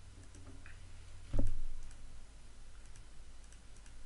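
Computer mouse clicks, light and sparse, with one much louder thump about a second and a half in, over a low steady hum.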